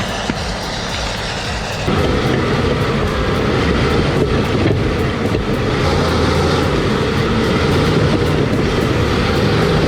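Heavy earthmoving machine running steadily, getting louder about two seconds in.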